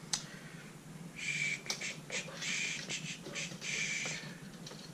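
Rustling, scraping handling noise in three bursts of about half a second each, with a few light clicks between them, as items are moved aside.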